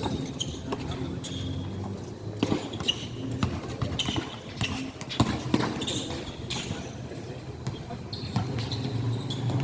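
Basketball game on an indoor court: the ball bouncing in irregular knocks, short high sneaker squeaks and faint background voices, over a steady low hum.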